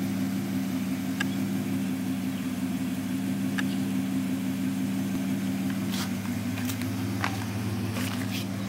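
A 2003 Dodge Ram 1500's 3.7 L V6 idling steadily through a dual Flowmaster Super 40 exhaust.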